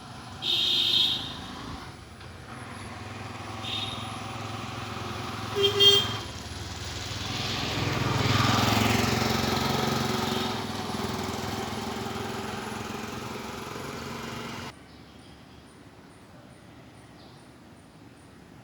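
Road traffic: short vehicle horn toots three times, then a motor vehicle passing that rises and fades. The sound cuts off suddenly near the end.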